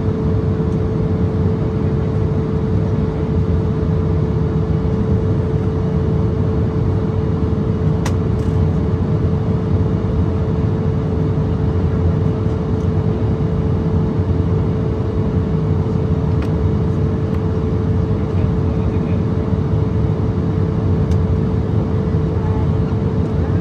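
Steady cabin noise inside an Embraer ERJ-170 in flight: the rumble of its GE CF34-8E turbofans and rushing airflow, with a constant hum running through it. A few faint clicks come through now and then.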